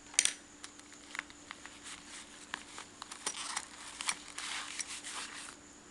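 Small items being handled: a sharp click about a quarter second in, then a string of lighter clicks and rustling.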